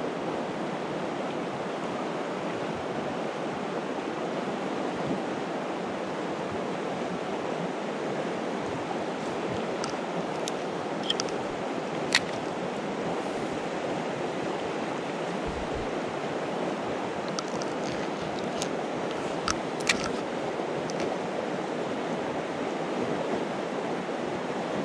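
Steady rushing of a fast mountain river, an even unbroken noise, with a few short sharp clicks standing out in the middle stretch.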